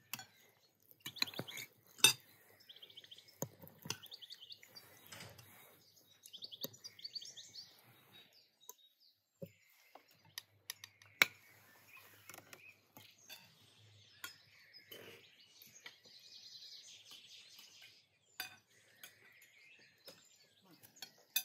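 Forks and spoons clinking and tapping on plates and glasses as people eat, in scattered sharp clicks. Birds chirp now and then in the background.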